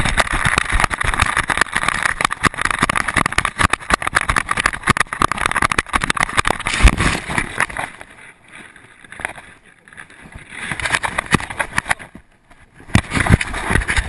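Wind rushing over the microphone of a camera strapped to a running dog's back, with rapid knocking and rattling from its strides. It drops off about eight seconds in and picks up again near the end.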